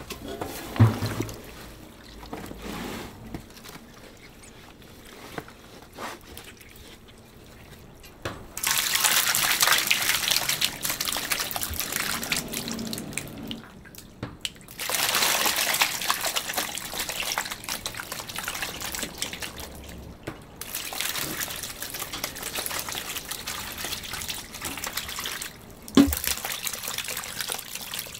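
Running water, flowing in several spells of a few seconds each with short breaks between them. There are a few light knocks early on and a sharp knock near the end.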